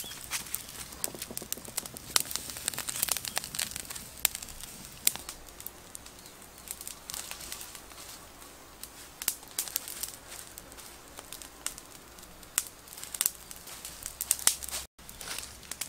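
Wood fire crackling under a spit-roasted pig head, with irregular sharp snaps and pops, thickest in the first few seconds.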